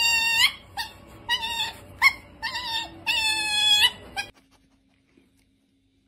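A dog giving a series of high-pitched howling whines, about seven calls, the first and last held longest. The calls stop abruptly about four seconds in, leaving near silence.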